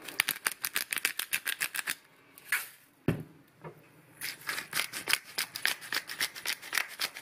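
Hand-turned salt and pepper grinders cranked over raw steak: rapid ratcheting clicks, about eight to ten a second, in two spells. The first spell lasts about two seconds; the second starts about four seconds in and runs on.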